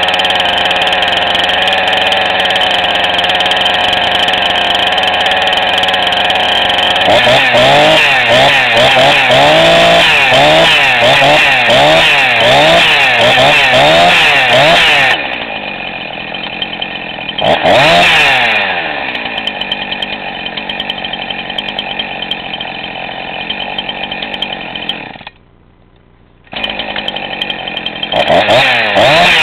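Jonsered CS2145 two-stroke chainsaw running: steady for about seven seconds, then revved in quick repeated throttle blips for about eight seconds. It then drops back to idle, with single revs a little later and again near the end. The sound cuts out for about a second about three quarters of the way through.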